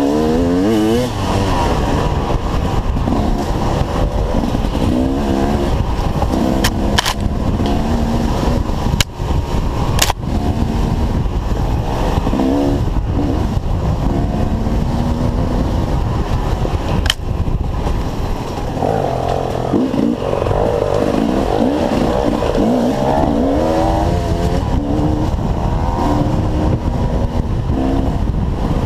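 Dirt bike engines revving up and down over and over, the pitch rising and falling with the throttle. A few sharp knocks cut through.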